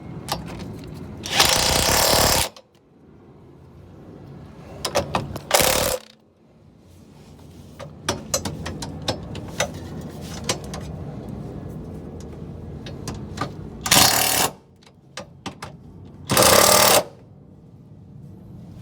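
Impact wrench run in four short bursts, driving bolts, with tool and metal clicks in between.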